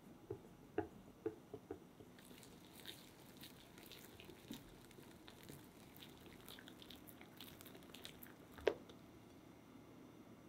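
Silicone-coated whisk stirring cocoa and flour into egg-yolk batter in a glass bowl, faint. A few light taps in the first two seconds, then soft wet clicking and squishing as the batter comes together, with one sharper knock near the end.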